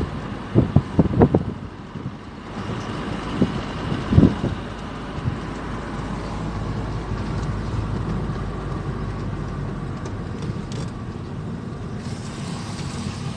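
Car driving along a road, with steady engine and road noise. A few short louder sounds come in the first seconds and again around four seconds in.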